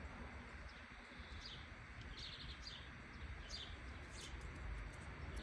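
Small birds chirping outdoors: short, high chirps repeated many times, more frequent in the second half, over a faint low rumble.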